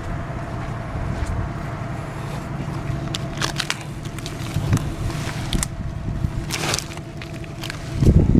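Dry fallen palm frond rustling and scraping as it is grabbed by a gloved hand and dragged over grass, over the steady hum of an idling Toro Workman utility vehicle. A loud low thump comes about eight seconds in.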